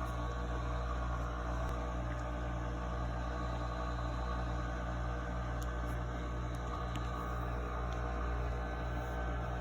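KitchenAid dishwasher running with a steady motor hum.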